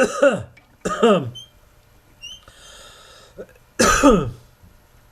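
A man coughing three times in short, loud bursts.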